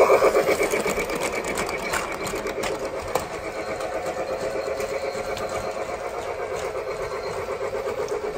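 Lionel Polar Express toy train running on its track: a fast, even mechanical chugging with a steady whirr.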